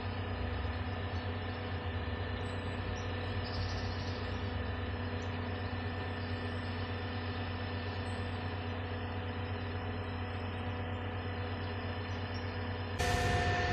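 Stoneblower track machine's diesel engine running steadily while standing: an even hum with a strong low drone. Near the end an edit cuts to a louder drone with a steady whine.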